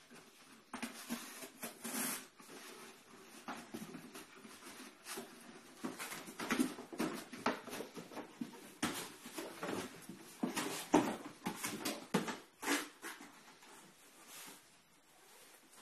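A dog tearing and rustling at a cardboard box: irregular scratchy rips, crinkles and knocks, busiest in the middle and thinning out near the end.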